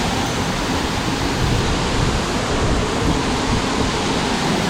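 A large waterfall rushing steadily: a loud, even roar of falling water.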